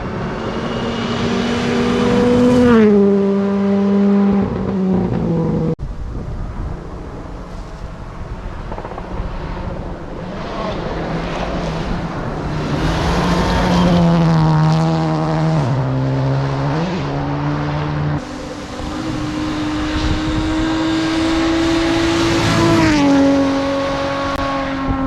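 Stage rally cars at full attack, engines revving high and shifting gear, the pitch stepping up and down with each gear change. The sound switches abruptly twice, from one car to another.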